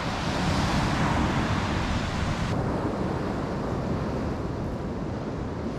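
Wind buffeting the microphone over the steady wash of surf breaking on a beach. About two and a half seconds in, the high hiss cuts away suddenly, leaving mostly low wind rumble.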